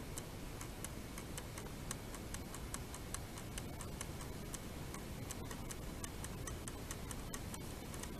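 Faint, uneven light clicks and ticks, several a second, as the nozzle of a tube of Shoe Goo is dabbed and worked over a tear in a vinyl mower seat.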